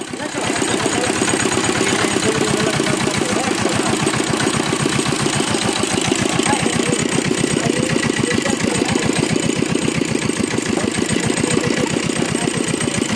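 Small single-cylinder engine of a sugarcane-juice roller crusher running steadily with a rapid, even beat, driving the crushing rollers as cane stalks are fed through.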